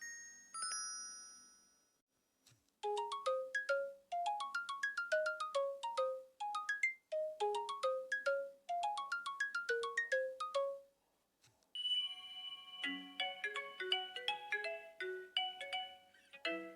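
LG phone ringtones playing one after another. One tone fades out, and after a short silence a melody of quick rising runs of notes plays. About twelve seconds in, a different ringtone melody begins.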